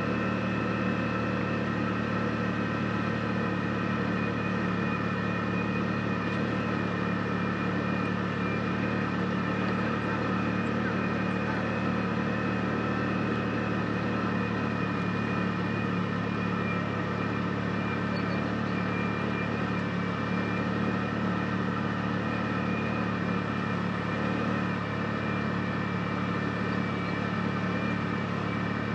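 Side-by-side UTV's engine running at a steady, unchanging pitch while cruising along a trail, a constant drone with several steady higher tones above it.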